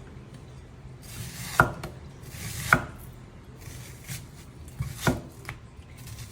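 Kitchen knife chopping an onion: a handful of unhurried, irregularly spaced cuts, three of them sharp knocks, with a short scrape of the blade before each.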